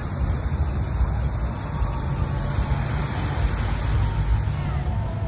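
Steady low outdoor rumble with no distinct bangs, with faint voices above it.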